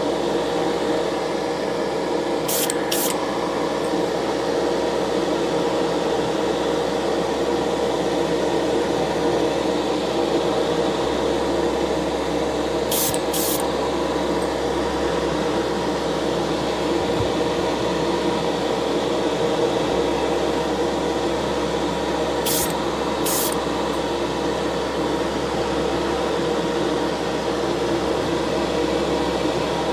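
A small electric motor runs with a steady hum throughout. Short hisses of spray paint come in pairs three times: about two and a half seconds in, around thirteen seconds, and about twenty-three seconds in.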